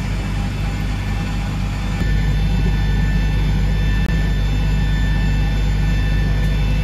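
Steady low drone inside the cabin of a Boeing 737 MAX airliner, with faint steady tones above it; it steps up a little louder about two seconds in.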